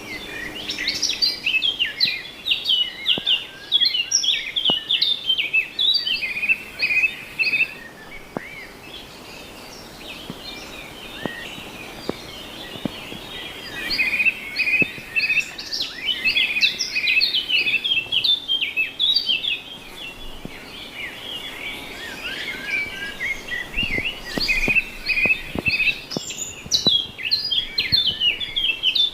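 A flock of small birds chirping together, a busy chorus of short, quick, high chirps and calls, with a quieter lull about a third of the way in.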